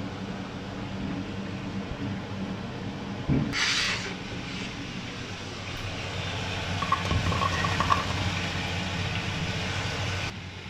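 Frying in hot oil, a steady sizzle over a low hum, with a short louder hiss about a third of the way in. The sizzle grows louder in the last few seconds as sliced frankfurters go into the pan, then cuts off suddenly.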